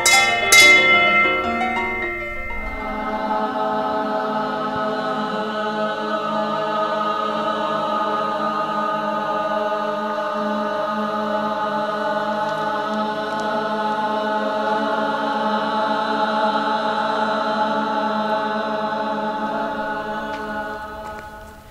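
Music: a few bright piano notes at the start give way to a choir holding one long, sustained chord that fades out near the end.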